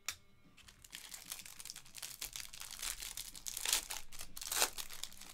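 Clear plastic card bag crinkling and rustling as cards are handled in it, with a short click at the start and the loudest rustles near the end.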